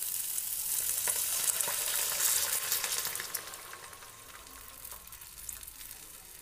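Chicken and vegetables sizzling in hot oil in a frying pan; about halfway through, a cup of water is poured in and the sizzle dies down to a quieter hiss.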